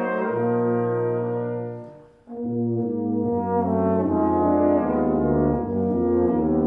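Brass quintet of two trumpets, French horn, trombone and tuba playing held chords that die away about two seconds in; after a brief pause the ensemble comes back in and plays on.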